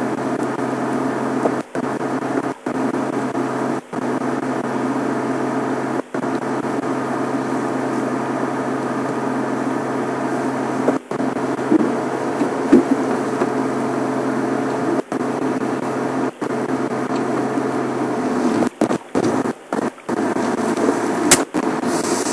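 Safari game-drive vehicle's engine idling, a steady low hum with a few constant tones, cut by brief dropouts in the sound every few seconds and several in quick succession near the end.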